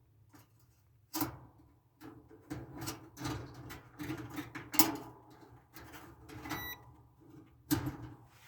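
Clicking and knocking handling sounds as multimeter probes and wires are moved about inside a dryer, with the sharpest clicks about a second in, near five seconds and near eight seconds. A short multimeter continuity beep sounds briefly past the middle.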